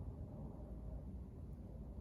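Wood fire burning in an open fire: a steady low rumble with a few faint crackles.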